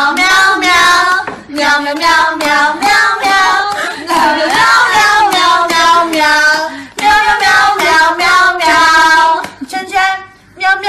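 Background song: a high-pitched voice singing a melody in phrases of one to two seconds, with short gaps near the end.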